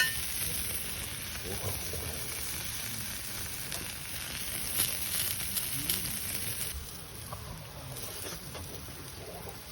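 Food sizzling on a hot iron griddle over a campfire, a steady frying hiss that grows quieter about seven seconds in. A sharp click sounds right at the start.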